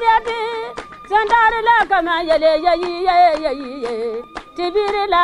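Women singing with hand-clapping: a voice holds long, wavering notes while hands clap in a steady beat.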